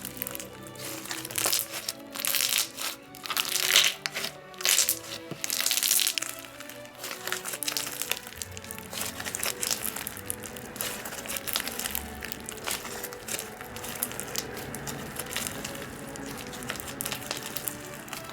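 Thick clear fishbowl slime with fishbowl beads being squeezed and pressed, giving many crackles, pops and crunches, loudest and sharpest in the first half, over background music.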